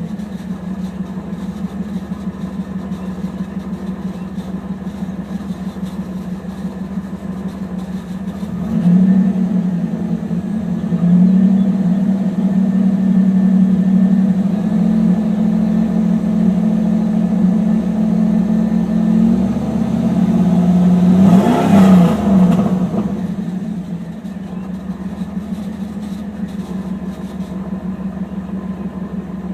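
1991 Pontiac Trans Am's tuned-port-injected V8 running. Its note steps up and gets louder about nine seconds in and holds there. A little past twenty seconds the pitch sweeps down, and the engine settles back to a steady lower note.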